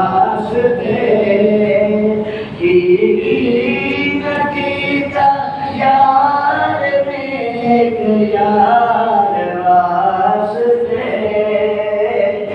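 A man singing an unaccompanied Islamic devotional chant in praise of the Prophet into a handheld microphone: long held notes that slide up and down in ornamented melodic lines, with no instruments.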